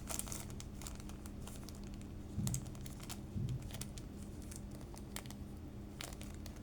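Small plastic bags of electronic components crinkling and rustling as they are handled, with scattered light clicks. A steady low hum runs underneath, and there are two soft bumps a little after the middle.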